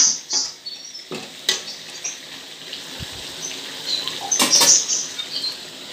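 Metal spatula stirring chicken in an aluminium wok, with a few sharp clinks and scrapes against the pan over a faint sizzle. Short high chirps recur in the background.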